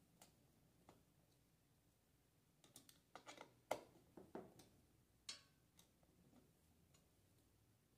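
Faint, scattered clicks and taps of a hand screwdriver and the metal chair frame as an upholstered seat is screwed on, bunched together a few seconds in with the sharpest click in the middle, and one brief scrape a little later.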